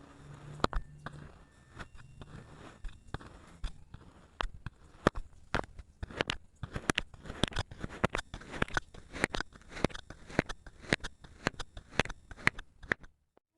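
Kinetic sand crunching and crackling as it is cut and crushed: a dense run of sharp crackles that thickens about four seconds in and stops abruptly near the end.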